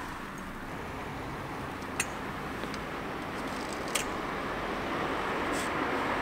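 Outdoor street noise: a steady hiss that grows slowly louder, with two sharp clicks about two seconds apart.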